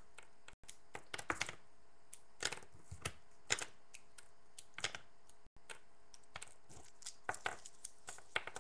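Plastic Lego pieces clicking and clattering as they are handled and set down on a tabletop: irregular light knocks, some in quick clusters.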